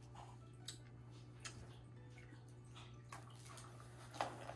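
Faint clicks and small wet mouth sounds from hard candies being sucked, over a steady low hum.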